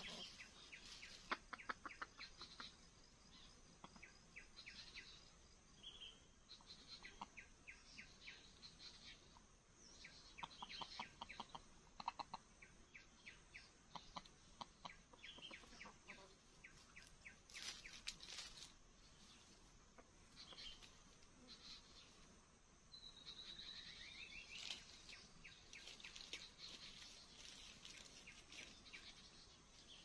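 Faint birdsong: many short high chirps and rapid twittering trills from small birds, with one longer falling whistle about 24 seconds in.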